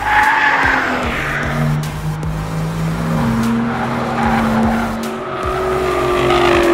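Performance car driven hard on a race track, its engine running at high revs with tyres squealing, over background music.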